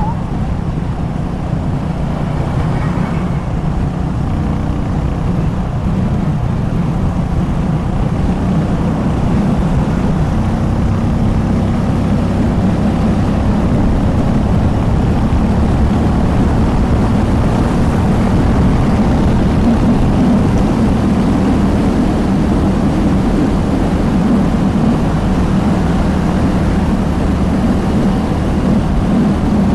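Harley-Davidson motorcycle engine running steadily, getting slightly louder about ten seconds in.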